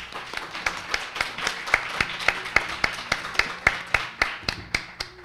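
Audience applauding, with one pair of hands clapping close by about three times a second, standing out above the rest; the applause dies away near the end.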